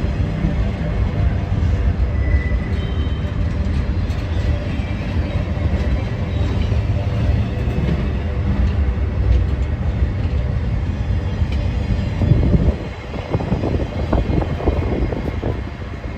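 Freight cars of a slow-moving CSX manifest train rolling past at close range: a steady low rumble of wheels on rail. It turns rougher near the end, with short knocks and clatter.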